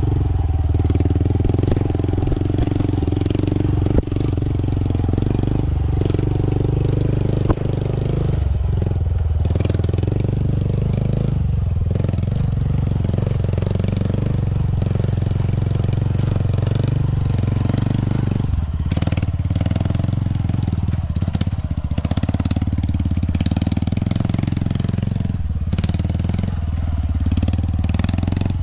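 Small dirt-bike engines running steadily at low speed in a low gear on a rough trail. Two sharp knocks break in during the first eight seconds.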